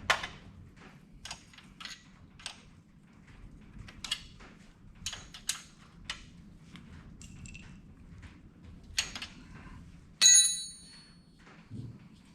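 Hand tools and metal hardware being handled while a battery cable is fitted to its stud: scattered light clicks and knocks, with one loud metallic clank about ten seconds in that rings briefly.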